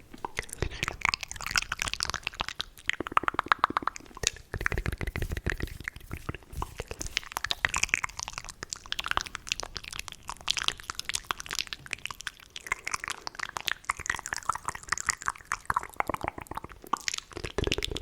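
Fast, aggressive ASMR mouth sounds close to the microphone: rapid wet clicks, smacks and tongue pops in quick runs throughout.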